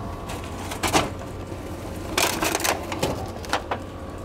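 Vending machine dispensing-slot flap and a plastic-packaged frozen curry being pulled out: a sharp knock about a second in, then a run of clicks and plastic rattles, over a steady low hum.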